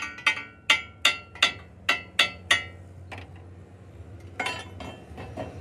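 Hammer blows on steel, each with a metallic ring: eight quick strikes in the first two and a half seconds, then a few lighter, scattered ones.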